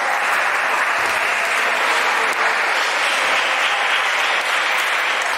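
Steady din of a busy table-tennis hall: a dense, even clatter like applause from many celluloid-type plastic balls striking tables and bats at once, with crowd noise mixed in.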